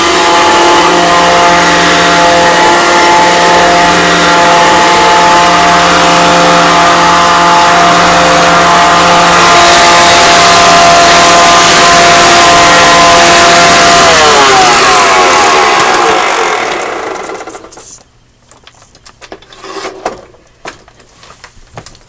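Hoover Decade 80 upright vacuum cleaner running steadily with a whine. About fourteen seconds in it is switched off and the motor winds down over a few seconds, its whine falling in pitch. A few light knocks and handling sounds follow as the machine is stood upright.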